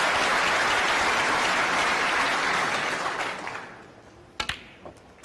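Audience applause that dies away about three and a half seconds in. Then a sharp click of a snooker cue striking the cue ball, followed by a few fainter clicks of the balls.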